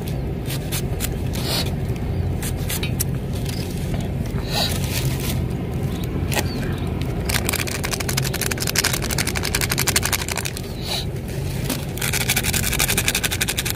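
Knife cutting through a cucumber held in the hand, a sharp click at each cut as chunks drop into a metal bowl, over a steady low rumble. In the second half comes a dense, rapid crackling lasting a few seconds at a time.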